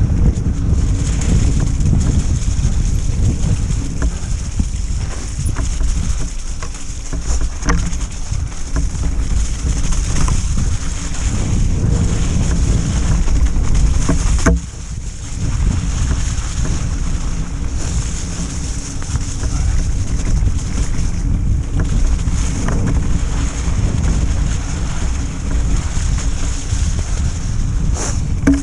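Wind buffeting an action camera's microphone while riding a mountain bike down a muddy forest trail, mixed with tyre rumble on the dirt. A few sharp knocks and rattles from the bike come through over the bumps, one of them about halfway through just before the noise briefly drops.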